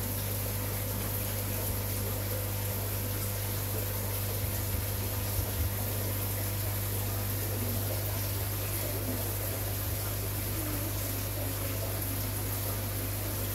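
Aquarium pump and aeration running steadily: a constant low hum under the fizz of bubbling water.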